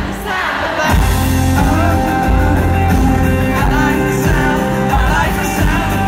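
Live country-pop band with a male lead vocal over drums, bass and acoustic and electric guitars, heard from within the crowd in a large hall. The beat drops out briefly at the start and the full band comes back in about a second in.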